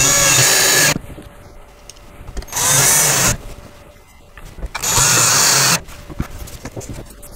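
Cordless drill driving screws into wood, three short runs of just under a second each, about two and a half seconds apart, with light handling knocks between them. The screws are fastening shelves down onto their ledges.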